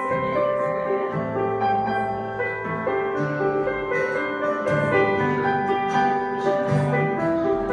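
Digital keyboard in a piano voice playing a slow instrumental introduction of held chords and melody notes, with an acoustic guitar accompanying.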